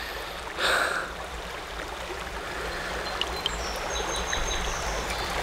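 Steady rush of creek water running over riffles, with a brief louder burst of noise just under a second in.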